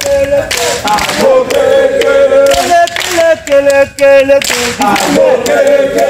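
A group of scouts singing a campfire chant together, unaccompanied, several voices at once.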